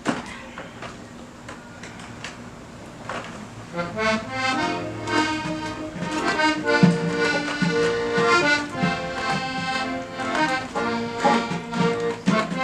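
A couple of sharp knocks, then about four seconds in an accordion starts playing a melody over held chords.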